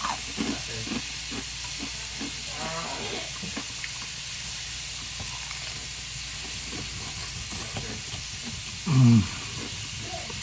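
Chicken frying in hot oil, a steady sizzle and hiss. A short pitched sound that falls in pitch rises above it about nine seconds in, with a weaker one around three seconds in.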